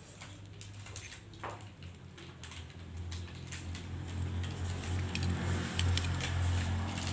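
Light clicks and taps as an aluminium rod and a rubber sandal piece are handled and fitted together. Under them a low steady hum comes up and grows louder over the second half.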